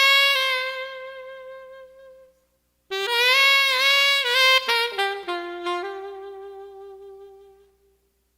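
Background music: a solo melody of long held notes in two phrases, each trailing off, with a brief silence between them.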